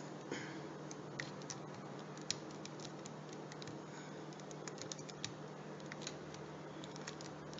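Scattered light plastic clicks and taps from a Dell Latitude E4300 laptop keyboard being handled and worked loose, over a steady low hum.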